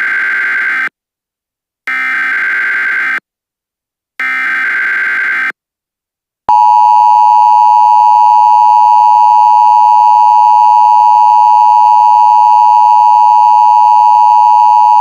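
Emergency Alert System broadcast signals. First come three buzzy digital data bursts of the SAME header, each about a second long with short gaps. About six and a half seconds in, the loud, steady two-tone EAS attention signal starts and holds.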